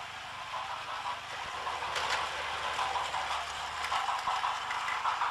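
Takara Tomy Plarail toy trains running on plastic track: a steady whir of their small battery motors and gearing, with the light clatter and a few sharp clicks of wheels over the track joints.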